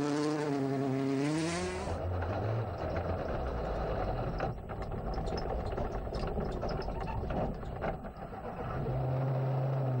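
Citroën DS3 R5 rally car engine revving hard, rising in pitch, as it drives on gravel. Then, heard from inside a rally car's cabin, an engine running with many short knocks and rattles, settling into a steady held note near the end.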